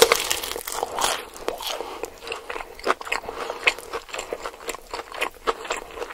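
A person eating close to the microphone: irregular crunchy bites and chewing, several small crunches and wet mouth clicks a second, as of raw greens eaten with a dipping sauce.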